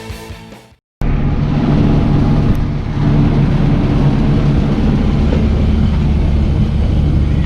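Background music fading out, then after a brief silence the steady, loud drone of a sailboat's engine running as the boat motors along, with a noisy rushing haze over it.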